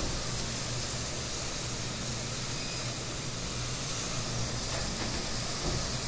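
Rainstorm with strong gusting wind and driving rain, a steady rushing noise with a low rumble.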